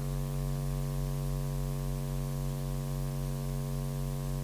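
Steady electrical mains hum with a buzz: a constant low drone with a stack of even overtones, unchanging throughout, carried on the open commentary audio line.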